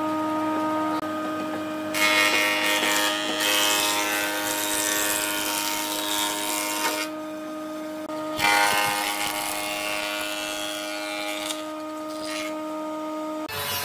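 An electric power tool's motor running steadily, with two long stretches of loud rough cutting noise as it works into wood, about two seconds in and again about eight seconds in.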